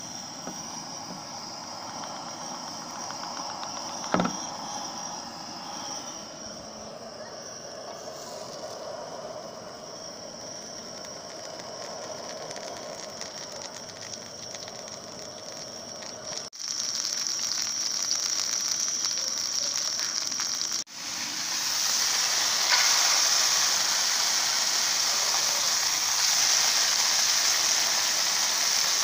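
Single-burner camp stove hissing under a copper frying pan, with insects chirping steadily and one sharp tap about four seconds in. After abrupt cuts about 16 and 21 seconds in, butter and then breaded trout pieces sizzle in the hot pan, louder toward the end.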